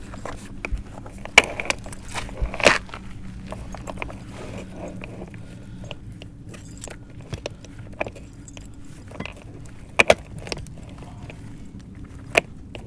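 Chain of a ratchet snap cutter for clay and cast iron pipe clinking and rattling in scattered metallic knocks as it is wrapped around a clay sewer pipe and fastened down, over a steady low hum.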